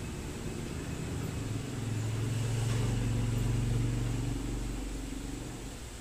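A motor vehicle going past, its low engine hum swelling and then fading over a few seconds, over a steady background hiss.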